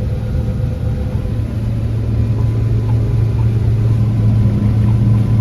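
Diesel engine of a large farm vehicle running steadily at a constant speed: an even low hum with a steady mechanical rush over it.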